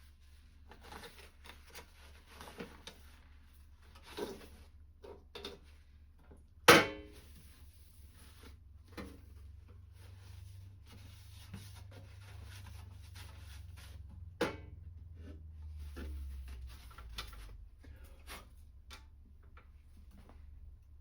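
Hands and a rag working over a metal toolbox while wiping off degreaser and WD-40: scattered rubbing and light clicks, with a loud sharp knock about seven seconds in and a lighter one about halfway through, over a low steady hum.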